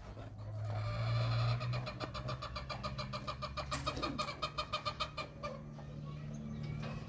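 A long animal call, pitched and rapidly pulsing, lasting about four seconds, over a steady low hum.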